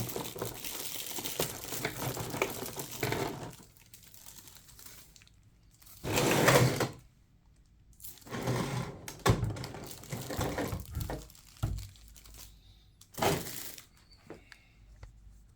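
Packaging rustling and crinkling as model aircraft parts are unpacked, in several bursts separated by quiet pauses, with a few light knocks and clicks.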